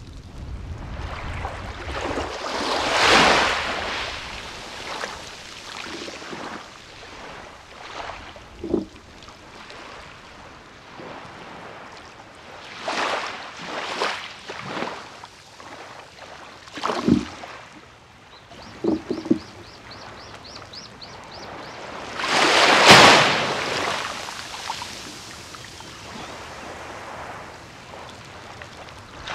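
Small waves breaking and washing up on a sandy beach, surging every few seconds, with the biggest wash a little past two-thirds of the way through.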